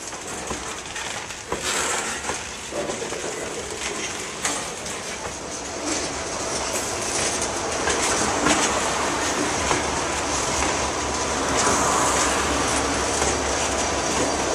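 Loaded freight hopper cars rolling slowly past, their wheels clicking over rail joints, with some thin wheel squeal. The sound grows louder through the second half.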